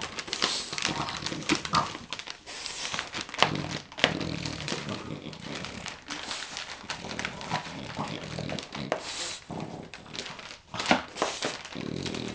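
Wrapping paper crinkling and rustling in quick, irregular bursts as a French bulldog noses and chews at a wrapped present.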